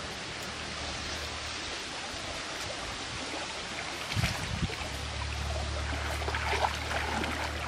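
Shallow stream water flowing and splashing around a wet cast net being gathered up by hand, with a couple of dull thumps about four seconds in.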